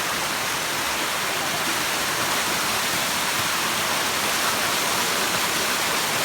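Waterfall, its falling water rushing steadily.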